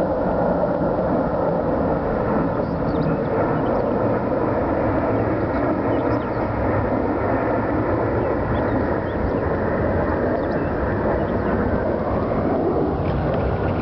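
Formation of three large military transport aircraft flying over, their engines making a loud, steady roar.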